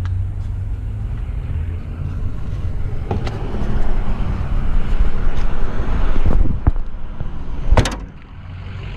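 Steady low rumble of a running motor vehicle, swelling in the middle, with a few sharp clicks or knocks, the loudest near the end.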